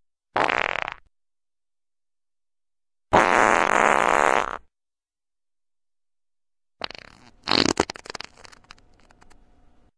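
Three farts one after another, cut apart by dead silence: a short one just under a second in, a longer one of about a second and a half starting about three seconds in, and a sputtering run of bursts starting near seven seconds that trails off.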